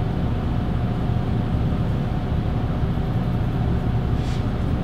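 Steady low mechanical hum of the workshop's background machinery or ventilation, with a faint short pencil scratch on the wooden plank about four seconds in.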